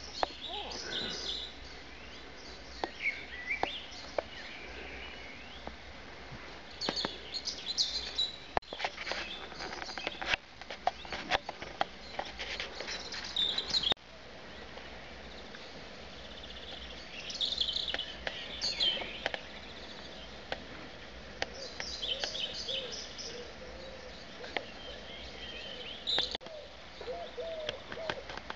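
Garden birds singing: repeated bright chirps and trills in clusters, with scattered sharp clicks and knocks among them.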